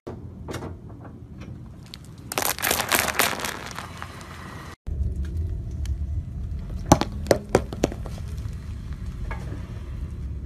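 Car tyre rolling over empty eggshells, crunching them in a dense run of crackles about two seconds in. Then a tyre rolls over three bath bombs over a low rumble, cracking them with several sharp loud snaps about two seconds later.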